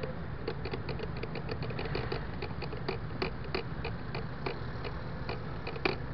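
MBK Tryptik three-wheel scooter idling at a standstill: a steady low rumble, with irregular light clicks and ticks over it, several a second, one sharper click near the end.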